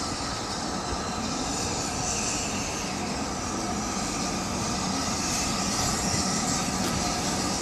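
Steam locomotive approaching along the line, its steady running sound growing slowly louder.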